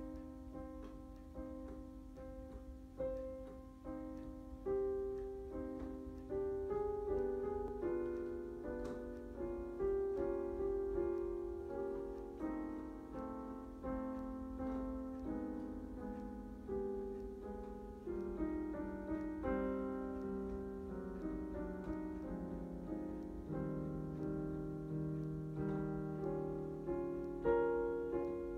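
Digital piano played with both hands: a slow melody over lower held notes, each note striking and then fading away.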